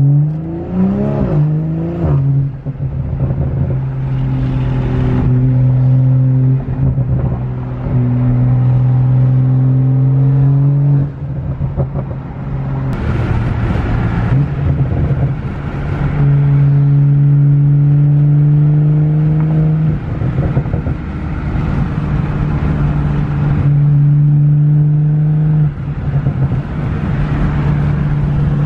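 Straight-piped exhaust of a BMW M340i's turbocharged inline-six, heard loud from inside the cabin while driving: the revs rise and fall briefly near the start, then a steady exhaust drone at highway cruise, dipping for a moment a few times.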